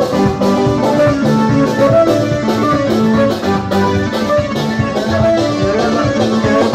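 Loud instrumental music with a steady beat and a melodic line of held notes.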